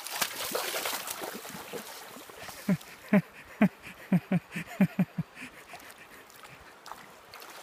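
Water splashing as a hooked salmon thrashes in the shallows while a wader grabs for its tail. This is followed by a run of about ten short, low vocal sounds over a couple of seconds, with the river running underneath.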